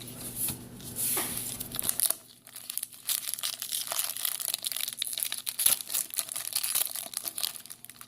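Foil trading-card pack wrapper crinkling and tearing as a new pack is opened, with irregular crackles throughout and a denser rustle about a second in.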